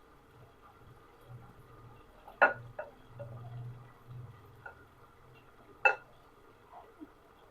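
A kitchen utensil knocking against a mixing bowl while pakora batter is mixed: two sharp clinks about three and a half seconds apart, with a few lighter taps in between and near the end.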